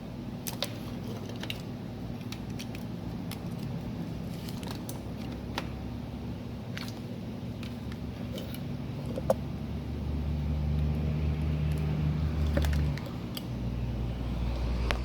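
Steady low electrical hum with scattered light clicks and taps of small parts and tools being handled. The hum swells louder for about three seconds near the end, then drops back.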